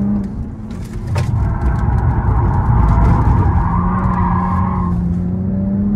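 Car engine and road rumble heard from inside a BMW's cabin while it is driven briskly on a race track. Near the end the engine note climbs steadily as the car accelerates.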